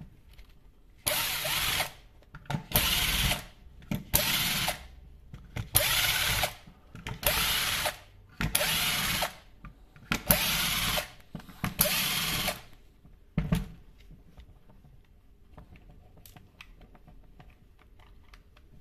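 Power drill-driver running in about eight short whirring bursts as it backs out the screws of a plastic electric chain-sharpener housing. After that come only a few faint handling clicks.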